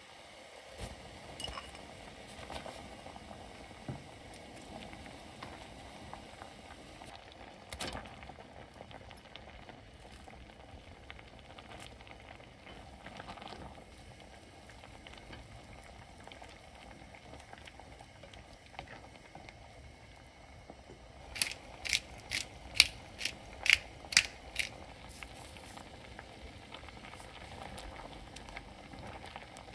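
Doenjang soup bubbling at a steady boil in a stainless steel pot. About two-thirds of the way through comes a quick run of roughly eight sharp taps, about three a second, louder than the bubbling.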